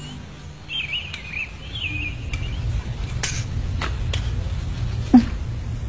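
Birds chirping in a short run of wavering calls, then a low room hum with a few sharp clinks of knife and fork on dinner plates.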